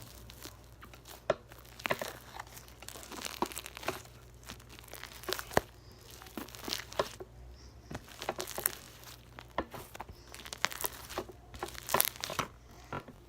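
Hands squishing and stretching a large, sticky slime, making irregular crackling pops and small tearing sounds.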